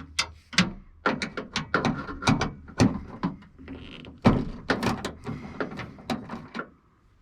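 Socket wrench on an extension clicking and knocking against the metal inside a car door while undoing the 10 mm nuts that hold the outer door handle: many sharp, irregular clicks that stop shortly before the end.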